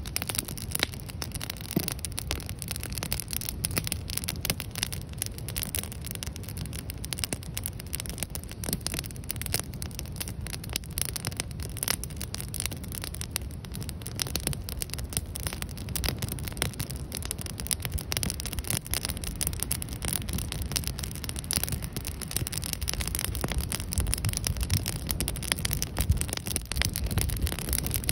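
Wood campfire of stacked logs and sticks burning vigorously, crackling with many small irregular pops over a steady low rumble.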